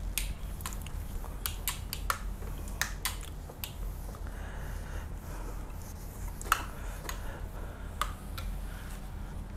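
A gloved hand wiping marker off a whiteboard: irregular sharp clicks and taps with soft rubbing between them, over a steady low electrical hum.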